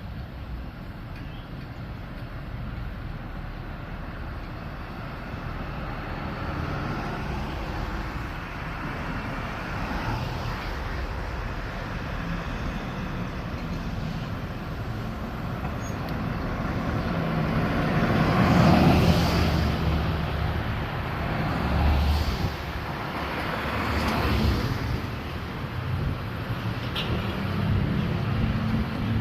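Fire apparatus driving past with engines running, louder about two-thirds of the way through with a few whooshes. Near the end the engine pitch rises as one accelerates.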